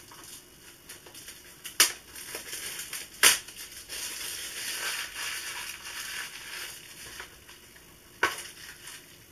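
Plastic shrink-wrap crinkling and tearing as it is stripped off a Blu-ray case, with three sharp clicks of the plastic case, the loudest about three seconds in and the last near the end.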